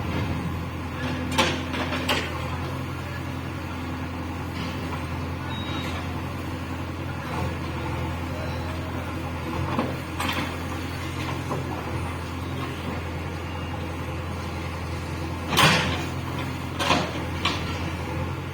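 JCB 3DX backhoe loader's diesel engine running steadily, with about six sharp knocks and clanks as the machine works; the loudest comes about three-quarters of the way in.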